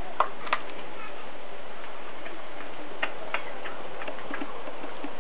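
Australian cattle dog chewing a whole raw rooster: sharp crunches of bone, a pair near the start and another pair about three seconds in, then a few fainter ones, over a steady hiss.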